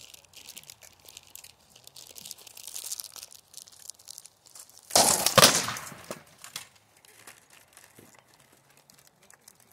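A quick flurry of clattering blows, about five seconds in and lasting about a second and a half: rattan swords striking shields and armour as two armoured fighters engage. Before it, faint rustling and shuffling.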